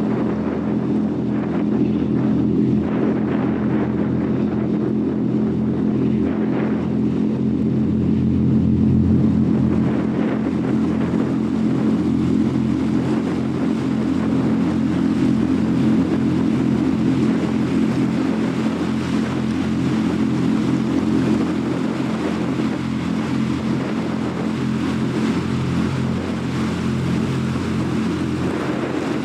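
Fast passenger ferry Queen Star 8 cruising past, its engines droning steadily in a stack of low tones over the rushing of its bow wave and wake.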